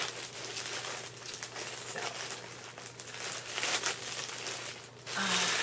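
Packaging crinkling and rustling in irregular bursts as a doll is worked out of its box and wrapping, busiest a little past the middle.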